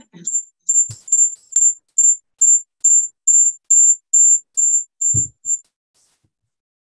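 High-pitched electronic beep repeating about twice a second, then stopping about five and a half seconds in. A brief low thump comes just before it stops.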